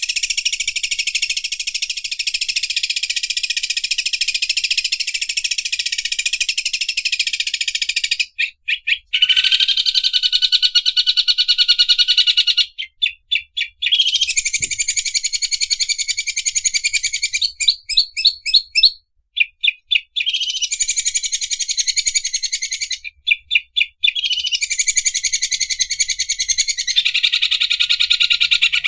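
Green leafbird (cucak ijo) singing its fast, machine-like 'overlock sewing machine' song: long high-pitched runs of very rapid repeated notes, broken every few seconds by brief stutters of separate notes.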